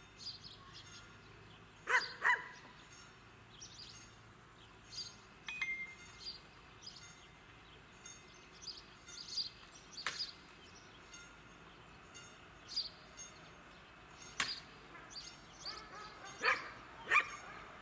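A dog barking: two barks about two seconds in and two more near the end, with faint short chirps and a couple of sharp clicks between them.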